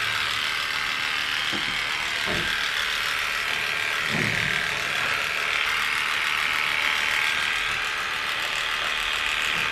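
Electric dog grooming clippers running steadily while shaving a puppy's coat, with a few faint soft knocks.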